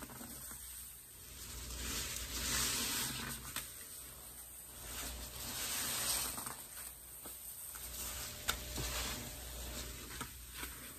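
Sponges being squeezed in a bucket of pine-cleaner suds: wet squelching and the sizzle of popping foam, swelling and fading with each squeeze, with one sharp click late on.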